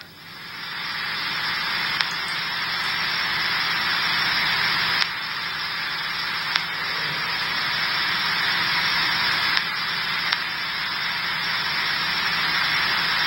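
Police scanner stream on a phone hissing with steady radio static between transmissions on an open channel, with a few faint clicks.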